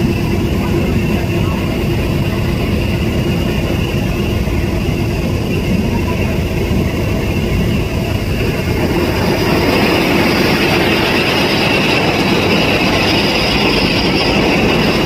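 A 4WD combine harvester running steadily as its unloading auger pours threshed paddy into a trailer: a dense, even machine noise with a few steady tones in it, growing somewhat louder partway through.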